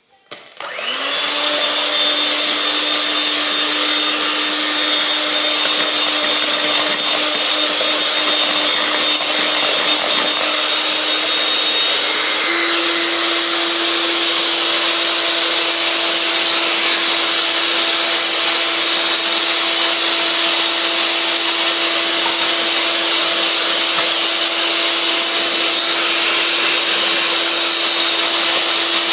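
Electric hand mixer beating eggs and sugar: a loud, steady motor whine that starts about half a second in and steps up in pitch about twelve seconds in.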